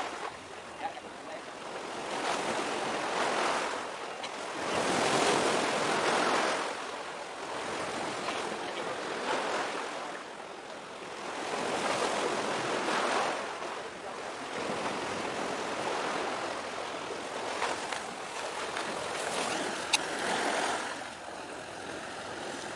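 Sea waves washing against a breakwater, a rushing noise that surges and falls away every few seconds. A single sharp click near the end.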